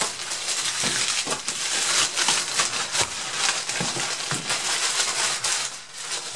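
Plastic courier mailer bag rustling and crinkling with dense crackles as it is torn open and pulled off a cardboard laptop box; the crinkling eases off near the end.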